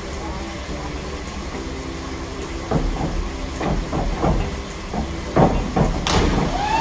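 A synchronised pair on a 3 m springboard: a series of knocks and thuds from the board during the takeoff, then a sharp splash as both divers enter the water about six seconds in, over a steady background hiss.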